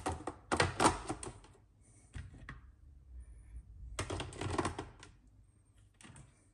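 Clear plastic food-dehydrator trays being stacked and clicked into one another: clusters of clattering plastic clicks, about four of them, with short pauses between.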